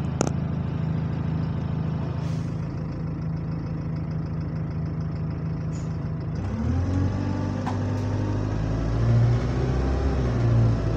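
Bus engine heard from inside the passenger saloon, idling with a steady drone and a short click near the start. About six seconds in it revs up with a rising, moaning note that grows louder. The bus is running in limp mode.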